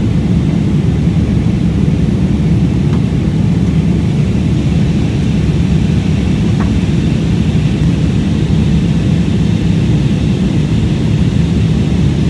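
Loud, steady low drone inside a jet airliner's cabin in flight: the engines and the air rushing past the fuselage.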